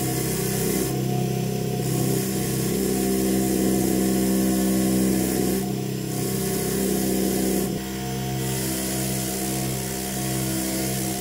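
Bench grinder motor running steadily with a wire wheel spinning, as rusty needle-nose pliers are pressed against it and scrubbed to strip the rust. The rough scrubbing eases off about eight seconds in, leaving mostly the motor's steady hum.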